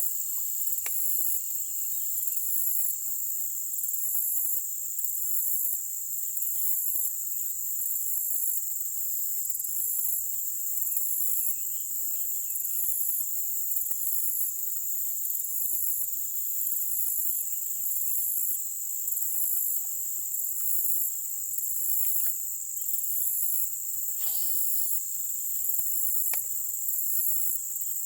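Insect chorus: a steady high, shrill trill with a regularly pulsing layer above it. A few faint ticks, two of them near the end.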